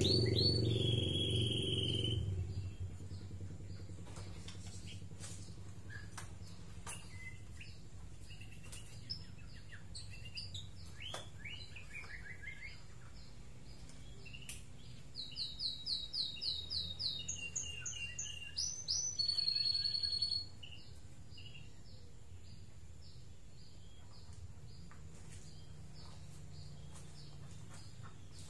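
White-rumped shama (murai batu) singing: a varied string of whistles, chirps and clicks. Its loudest part is a quick run of rising notes a little past the middle, and only scattered soft chirps follow near the end. A low rumble fades out over the first two seconds.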